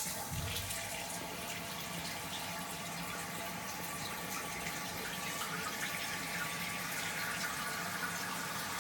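Toilet fill valve running as water refills the tank after the supply is turned on: a steady rush of water that starts suddenly.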